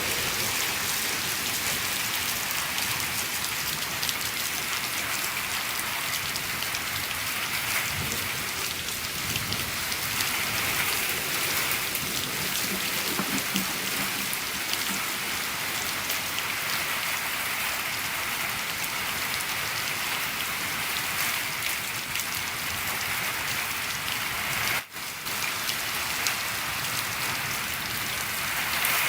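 Steady heavy rain falling on a shed roof, a dense even patter of drops, with a momentary dropout about 25 seconds in.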